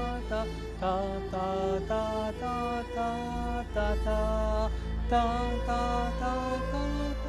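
Orchestra playing a melody of held, pitched notes, the note changing about every half second to a second.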